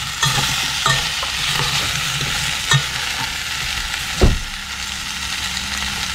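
Diced potatoes and ham sizzling in a little oil in a stainless steel pot, stirred with a metal spoon that scrapes the pot now and then. A single low thump a little past the middle.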